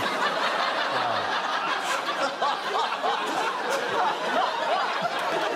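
Studio audience laughing together, a sustained wash of many voices that stays at an even level throughout.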